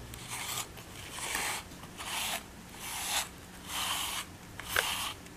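A grooming brush drawn through a cat's thick fur in repeated strokes, a rasping rub about once a second, five or six strokes in all.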